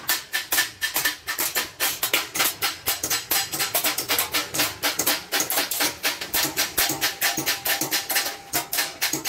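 Small hammer tapping rapidly and steadily on the edge of a sheet-metal milk-can piece, about six strikes a second, each with a brief metallic ring.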